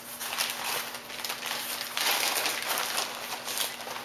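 Plastic Ziploc freezer bag crinkling as a folded box-board tray is slid into it: a dense rustle of small crackles, loudest about two seconds in.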